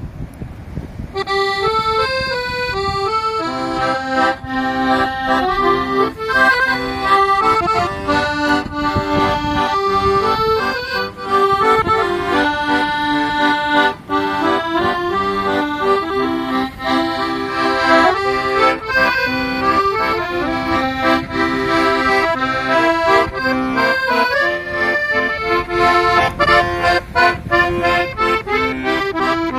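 Accordion playing a traditional tune, a lively melody over chords and bass, starting about a second in.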